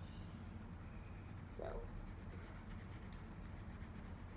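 Faint scratching of a colored pencil shading on paper.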